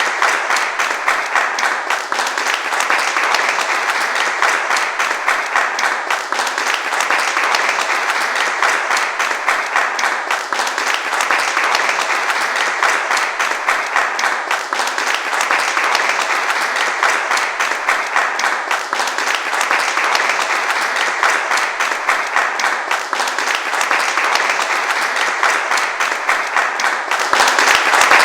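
Sustained applause from a large crowd, a dense, even wash of many hands clapping that holds steady and swells slightly near the end.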